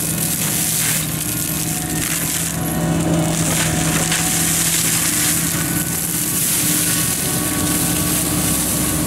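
Excavator-mounted FAE forestry mulcher shredding dry grass and brush at ground level: the spinning rotor makes a dense, continuous grinding noise over the steady hum of the excavator's engine under load.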